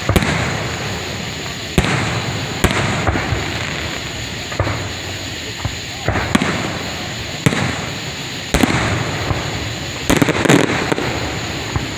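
Aerial fireworks bursting: sharp booms every second or so, each trailing off in a fading rumble, with a quick cluster of several bangs about ten seconds in.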